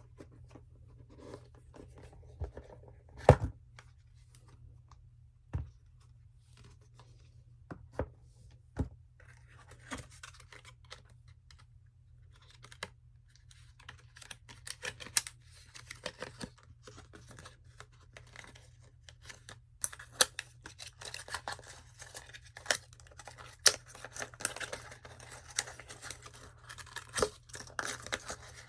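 Cardboard and paper packaging of an Apple Watch being handled and opened: scattered sharp taps and clicks, with a louder knock about three seconds in, then busier rustling and tearing full of small clicks through the second half.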